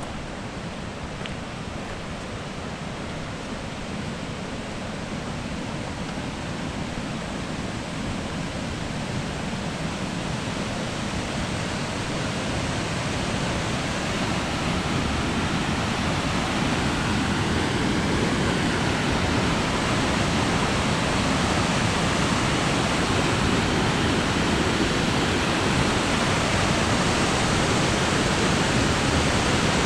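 Rushing creek rapids: a steady rush of white water that grows gradually louder as the rapids come closer.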